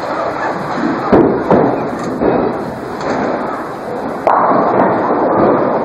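Bowling alley din: a few heavy thuds about a second in, then a sudden louder clatter a little past four seconds, typical of balls landing and pins being struck, over the steady noise of the hall.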